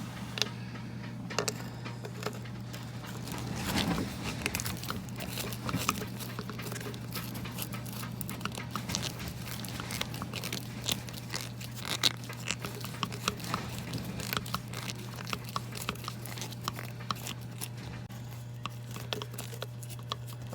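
Hands and tools working a hose clamp: an irregular run of small clicks, scrapes and rattles of metal parts, over a steady low hum.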